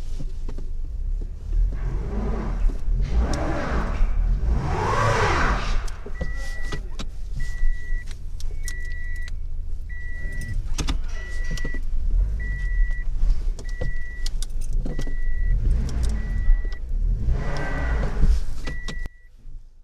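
Inside a moving car: steady low engine and road rumble, with swelling swishes. From about six seconds in, a steady high beep sounds about once a second. The rumble stops abruptly near the end while the beeping goes on.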